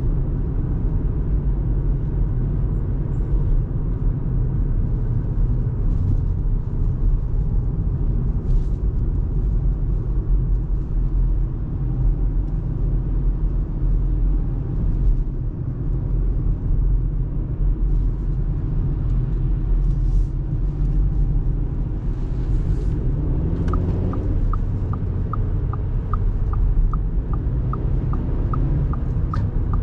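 Steady low road and engine rumble of a 2024 Audi A3 Sportback with its 1.5 TFSI four-cylinder turbo petrol engine, driving along. In the last few seconds a run of evenly spaced light ticks sounds, a little under three a second.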